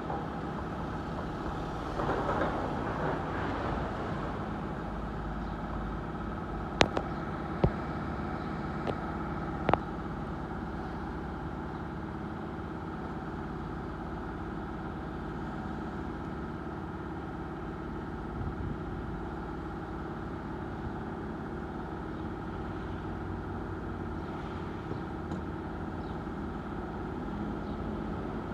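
Heavy demolition machinery engine running steadily, with a few sharp knocks about seven to ten seconds in.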